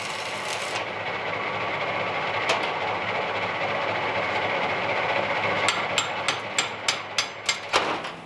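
Electric arc welder running a bead on thick steel plate with a steady crackle. A quick series of sharp pops comes near the end, and then the arc cuts off suddenly.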